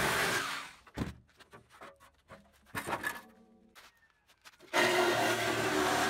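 Corded Milwaukee Sawzall reciprocating saw cutting through a rusted steel trailer fender. It stops under a second in, a few knocks and clicks come during the pause, and the saw starts again suddenly near the end and runs steadily.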